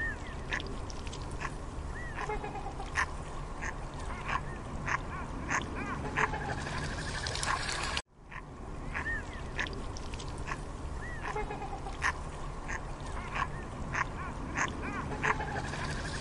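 Waterfowl calling: a run of short calls and quick chattering over steady background noise. It breaks off briefly about halfway through, then starts over with the same sequence.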